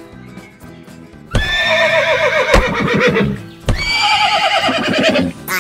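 Two long horse whinnies, each falling in pitch with a fast quavering trill, starting about a second in, over quiet background music. They are a dubbed sound effect for toy horses.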